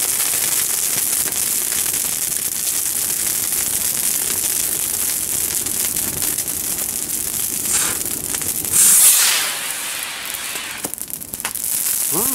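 A fire crackling and hissing steadily. About nine seconds in, a firework gives a louder hiss lasting about a second.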